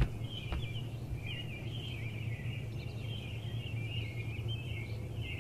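Birds chirping and twittering continuously over a steady low hum, with a short click right at the start and another about half a second in.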